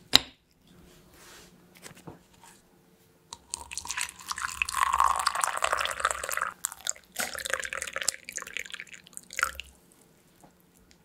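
A single sharp click of a knife against a glass butter dish as a slice of butter is cut off. About three seconds later, hot water is poured from a kettle into a ceramic mug for roughly six seconds, with a short break partway through.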